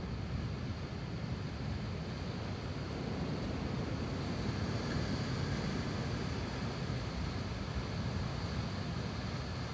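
Rough sea surf breaking and washing over rocks below the cliffs, a steady low wash with no distinct crashes, mixed with wind buffeting the microphone.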